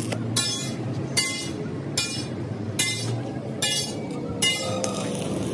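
Steel wire brush scrubbed in short strokes over a fresh weld on a steel beam, about one stroke a second, each stroke ringing metallically. A low steady hum runs underneath.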